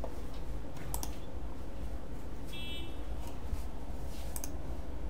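A few computer mouse clicks, three short sharp ones spread over the seconds, over a steady low hum.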